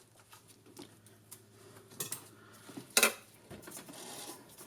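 Metal hand tools clinking against a small golf-cart engine during a valve-lash adjustment: scattered light ticks, with two sharper clanks about two and three seconds in, the second the loudest.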